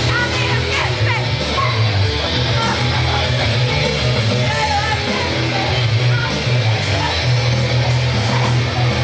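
Loud heavy rock music with guitar over a low bass line that shifts pitch every second or so.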